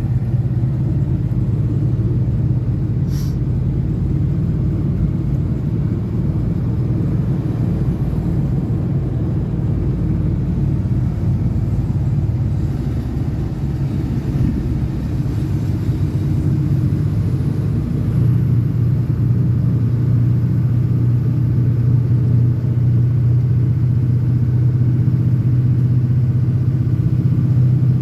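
Diesel pickup truck driving along, its engine and road noise making a steady low drone, with one short click about three seconds in.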